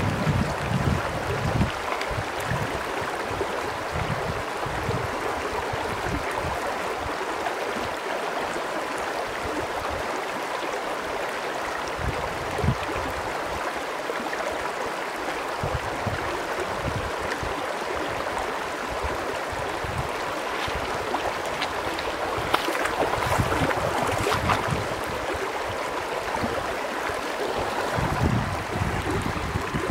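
A shallow mountain creek flowing over stones, a steady rushing babble. Low gusts of wind buffet the microphone at the start and again near the end, and a cluster of short, sharp ticks sounds about two-thirds of the way through.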